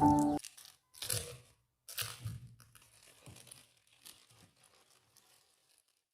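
Background music cuts off just after the start, followed by a few short crackling, crunching noises, the loudest two about a second apart, then fainter ones dying away.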